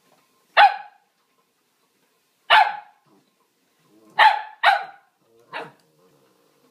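Cavalier King Charles Spaniel barking five times in short, sharp single barks, the last one softer; demand barking for her frisbee.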